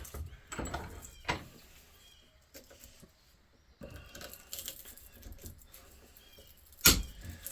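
Quiet handling of metal motor parts, with a few sharp clicks and knocks; the loudest comes near the end.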